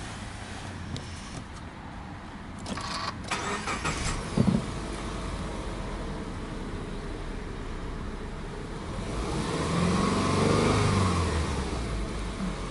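Subaru Legacy Touring Wagon 2.0i's EJ20 flat-four engine being cranked by the starter and catching about four seconds in. It then idles at about 1,000 rpm, and near the end is revved gently to about 2,000 rpm, rising and then falling back.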